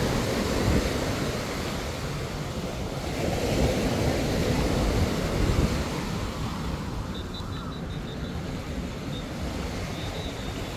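Surf washing onto a sandy beach, with wind buffeting the microphone, the rush swelling and easing.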